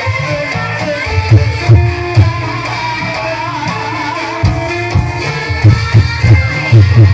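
Live Banyumasan gamelan music accompanying ebeg: hand-drum strokes in quick clusters over sustained pitched instrument lines, with a wavering melody line about halfway through.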